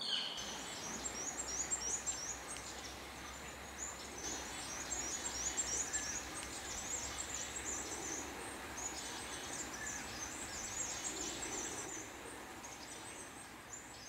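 High, thin chirping of small birds: rapid short notes in a loose, continuous chatter, over a steady low background rumble.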